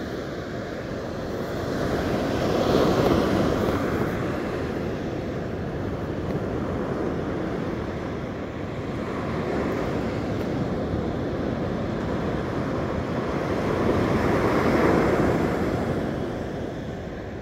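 Ocean surf breaking and washing up a sandy beach, with wind rushing over the microphone. The wash swells louder twice, about three seconds in and again near the end.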